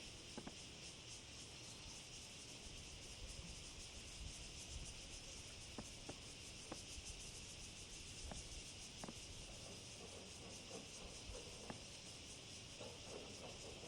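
Faint, steady high-pitched chirring of insects in the countryside, with a handful of faint clicks and a low rumble beneath.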